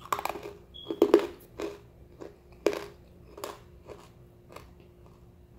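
Crunching and chewing on a dry chunk of white kaolin clay, which is really crunchy: a few loud crisp bites in the first three seconds, then softer chewing crunches every half second or so.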